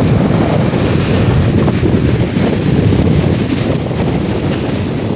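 Steady wind rumbling on the microphone over the sound of open water.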